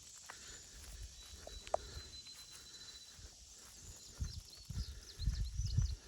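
Outdoor ambience with birds chirping in short high calls, mostly in the second half. Loud low rumbles come in from about four seconds in, strongest near the end.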